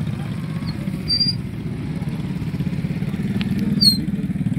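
A small engine idling steadily, an even low chugging, with a couple of faint high chirps about a second in and near the end.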